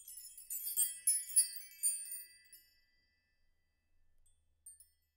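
High, bright chime notes tinkling in a quick run of strikes, ringing on and fading out about two and a half seconds in.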